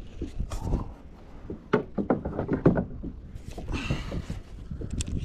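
Irregular knocks and thumps of fishing rods and a spinning reel being handled against a plastic kayak while a hooked fish is being brought in, with a short hiss about four seconds in.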